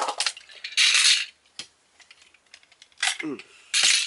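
Hard plastic toy parts clicking, rattling and rubbing as they are handled and popped apart, in several short bursts.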